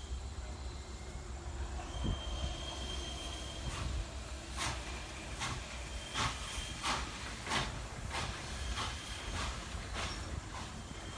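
Steam locomotive at work: a run of about ten sharp hissing exhaust beats through the middle, over a steady low rumble.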